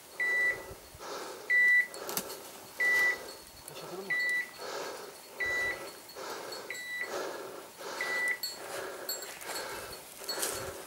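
Hunting dog's beeper collar sounding a short, high, steady beep about every 1.3 seconds, seven beeps in all, stopping about eight seconds in. Between the beeps, footsteps rustle through dry leaf litter and brush.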